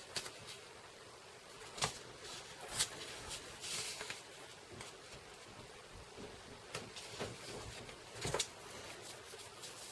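Tear tape and cardstock being handled by hand: a few sharp taps and clicks spread through, with a short papery rasp about four seconds in.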